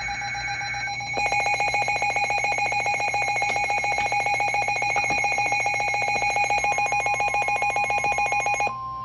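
Emergency Alert System tones on a NOAA Weather Radio broadcast. A short burst of screechy digital header data plays first. About a second in, a loud, rapidly pulsing electronic alert tone starts and runs for several seconds, and a steady tone joins it near the end. These tones mark the start of a new warning.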